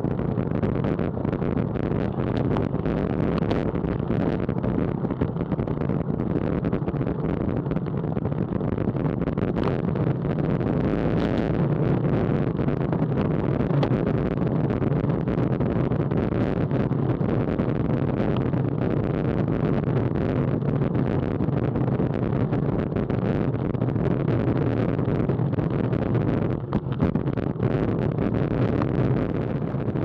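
Steady wind rush and rolling road noise on a moving bicycle's Garmin VIRB action-camera microphone, heaviest in the low end, with a brief dip in level near the end.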